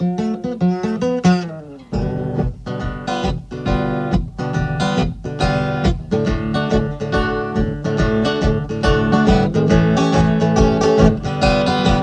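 Solo blues guitar playing an instrumental break between sung verses: picked bass notes under treble runs in a steady rhythm, with a short dip about two seconds in.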